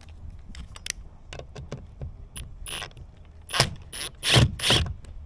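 A screw being backed out of its freshly drilled hole: light mechanical clicks, then several louder short rasping scrapes.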